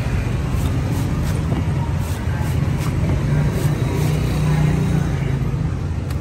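Cleaver strokes shaving the green husk off a young coconut on a wooden board: a series of short, irregular chops. They sit over a steady low rumble of motor traffic.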